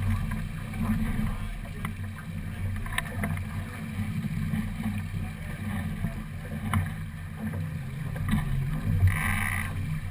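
Sailing keelboat under way: a steady low rush of water along the hull with wind buffeting the microphone, scattered small clicks from lines and fittings, and a brief louder hiss about nine seconds in.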